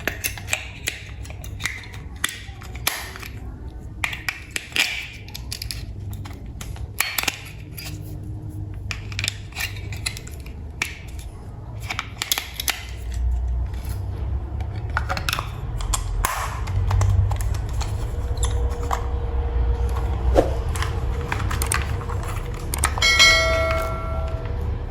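Toy train parts being handled: many small clicks and knocks over a steady low hum, with a brief bell-like ring near the end.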